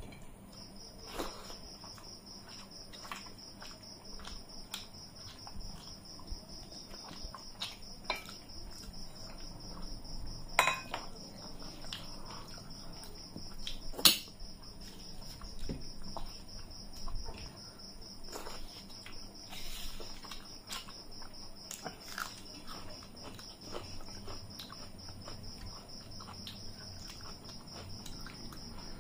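A cricket trilling steadily at a high pitch, over eating sounds: fingers working rice on metal plates, chewing, and light clinks of metal dishes, with one sharp clink about 14 seconds in.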